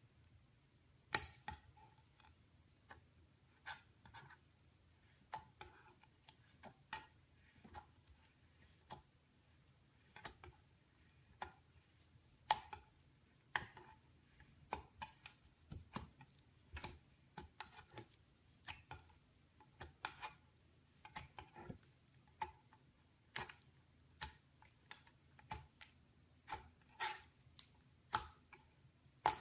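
Green slime being pressed and stretched by hand, giving irregular sticky clicks and pops about one or two a second, the sharpest pop about a second in.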